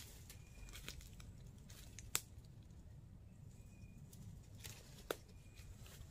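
Faint rustling and crackling of leafy branches being pulled by hand, with two sharp snaps of stems breaking, one about two seconds in and one about five seconds in.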